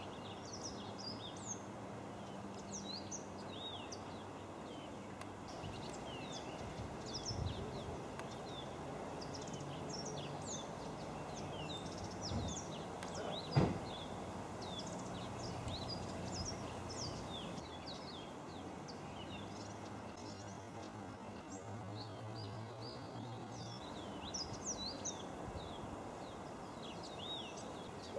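A busy chorus of many short, high bird chirps over a steady background hum. A single sharp knock about halfway through is the loudest moment.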